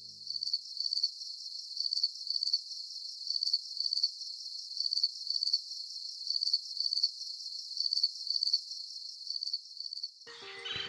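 Crickets chirping at dusk: a high, steady trill pulsing in regular chirps about twice a second.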